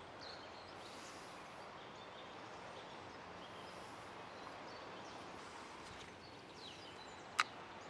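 Steady rushing of a river's flowing water, with one sharp click near the end.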